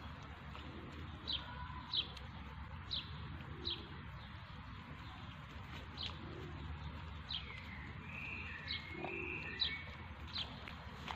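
Small birds chirping: short, sharp, downward-sliding chirps repeated roughly once a second, with a brief warbling call about three-quarters of the way in, over a steady low background noise.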